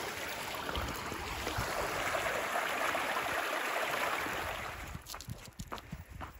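Small mountain stream rushing and splashing over rocks. About five seconds in the rushing cuts off, and quieter footsteps follow.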